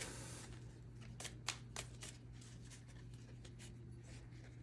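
A deck of Ogham oracle cards being shuffled by hand: faint, irregular soft card snaps and slides, over a low steady hum.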